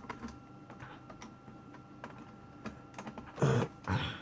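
Plastic computer keyboard being handled upside down during disassembly, with faint scattered clicks of keys and casing and two louder knocks near the end.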